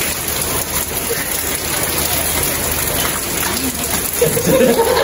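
Heavy rain falling steadily on a wet paved yard, with a stream of rainwater pouring off the roof edge. A man's voice comes in near the end.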